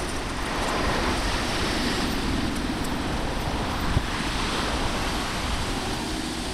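Steady rush of wind on the microphone of a moving bicycle, with the tyre noise of cars passing close by on the adjacent road swelling and fading twice. A short knock about four seconds in.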